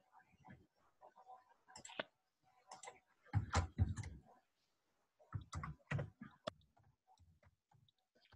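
Computer mouse clicks and keyboard keystrokes in a few short bursts, the loudest about halfway through, as a word is typed in.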